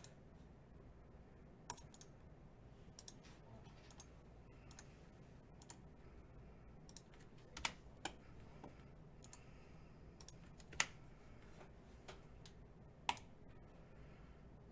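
Sparse, irregular clicks against a quiet room, about a dozen, with three sharper ones in the second half.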